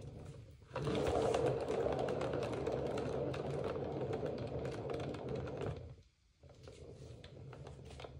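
Turntable spinning a wet acrylic pour painting, giving a steady rattling whir with a low hum. It starts about a second in and stops sharply near six seconds, then a fainter stretch of the same whir follows.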